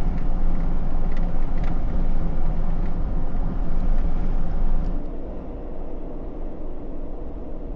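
Jeep Gladiator driving on a paved road: steady engine and tyre rumble, which eases and gets quieter about five seconds in.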